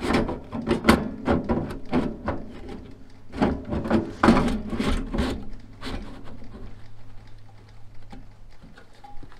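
Galvanized steel vent cap of a direct-vent propane heater being twisted and pushed onto its vent pipe: a run of metal scrapes and knocks through the first six seconds, then only a few faint taps.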